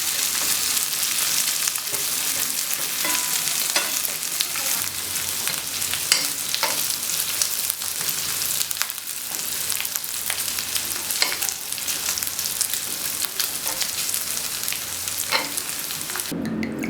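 Pieces of pork belly, neck and jowl sizzling on a hot grill pan, with scattered sharp pops and clicks through the steady frying hiss. The sizzle cuts off suddenly near the end.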